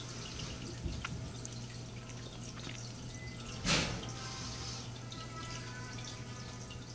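Aquarium water trickling and dripping over a steady low hum, with one short, louder splash about halfway through.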